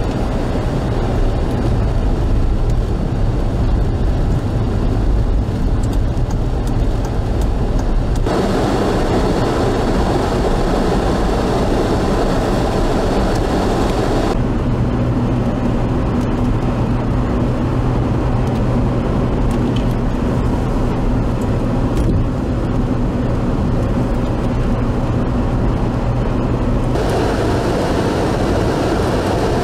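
Steady noise of a vehicle driving through a snowstorm: a low engine hum under road and wind noise. Its character changes abruptly several times.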